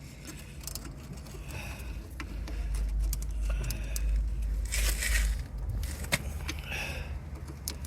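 Spanner work on a car's brake caliper guide bolt: scattered metal clicks and scrapes over a low rumble that swells in the middle, with a brief rush of noise about five seconds in.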